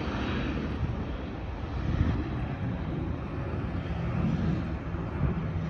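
Jet airliner's engines heard as it climbs away after takeoff: a steady low rumble with a hiss above it.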